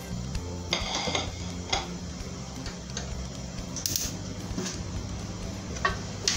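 A wooden spoon scraping and knocking in an aluminium pressure-cooker pot, with scattered clicks as the gas stove is switched on and a brief sharp burst about four seconds in.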